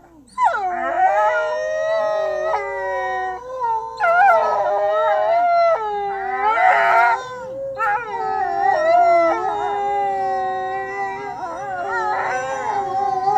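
Several wolves howling together in a chorus: long, wavering calls at different pitches overlapping one another, with only brief breaks.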